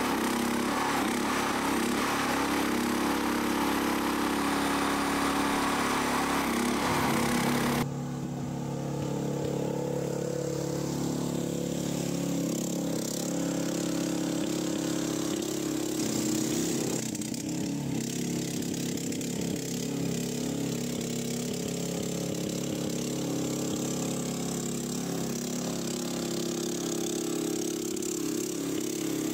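Tracked mini dumper's small engine running steadily.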